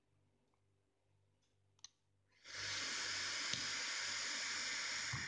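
A short click, then about three seconds of steady hissing as a Wotofo Sapor RTA is vaped, air drawn through the atomizer over the firing coil; the hiss cuts off suddenly near the end.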